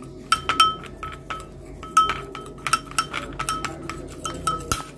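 A spoon clinking repeatedly against a bowl while stirring yogurt and honey together, irregular ringing taps about three or four a second.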